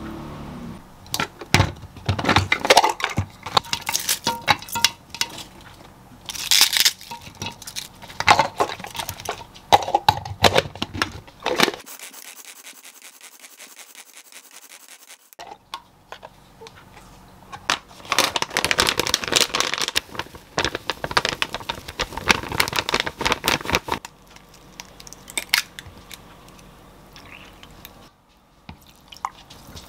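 Kitchen food-prep handling sounds: clinks and knocks of a glass bowl and utensils on a stone countertop, and the rapid whirring rattle of a pull-cord hand chopper mincing vegetables. The busiest run of quick strokes comes in the middle, after a short quiet spell.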